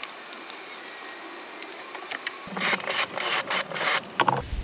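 Cordless drill with a Forstner bit boring into a wooden door jamb in a series of short, irregular bursts, starting about halfway in after a quiet stretch.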